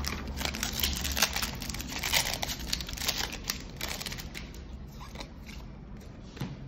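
Foil wrapper of a Magic: The Gathering draft booster pack being torn open and crinkled by hand. A dense run of crackles over the first four seconds or so, then much quieter.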